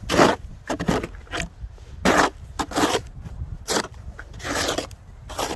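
Snow shovel scraping snow off a concrete sidewalk in a run of short, repeated strokes, one every second or less.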